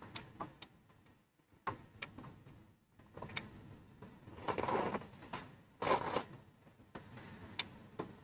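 Close-miked eating sounds over a bowl of noodle soup: a run of small clicks and taps, with two louder stretches of mouth noise about four and a half and six seconds in.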